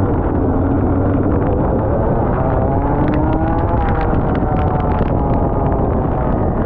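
Rotax Max two-stroke kart engine running hard at speed, its pitch climbing about halfway through and easing off again a second or so later. A run of sharp ticks sounds over the middle of it.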